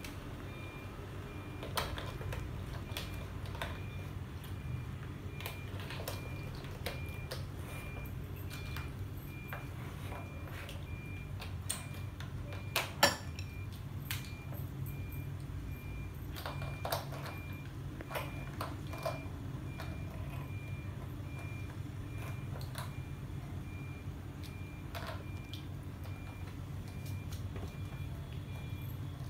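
Plastic building bricks clicking and rattling as they are pressed together and picked from their box: scattered light clicks, the loudest a small cluster about 13 seconds in, over a steady low hum.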